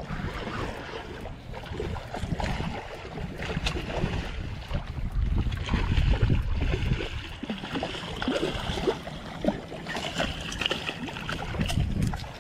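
A hooked snook thrashing and splashing at the water's surface as it is reeled in, under wind rumbling on the microphone.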